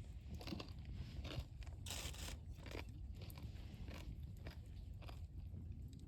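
Wood campfire crackling, with irregular sharp snaps and pops and a louder burst of crackle about two seconds in.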